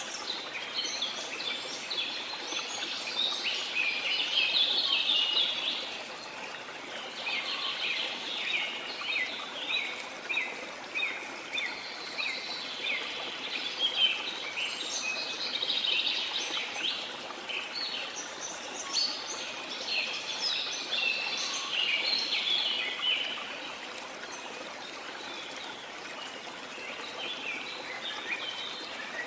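Tropical rainforest birds chirping in dense, overlapping bouts of short rapid notes over the steady rush of a waterfall. The birdsong thins out for a few seconds near the end, then picks up again.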